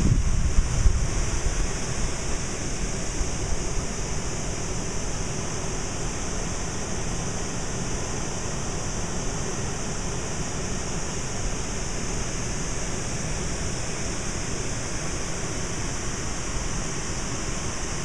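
Steady rushing outdoor noise with a low rumble and a steady high hiss, the rumble heavier in the first second or two.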